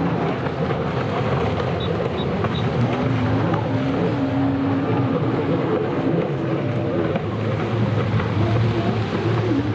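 Racing stand-up jet skis' engines running at speed out on the course, a steady drone whose pitch wavers up and down as the riders throttle through the turns.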